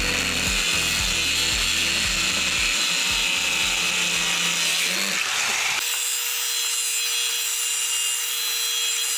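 Electric power tool cutting or shaping wood: a loud, steady machining noise. About six seconds in it changes abruptly to a steadier hiss with a single whining motor tone.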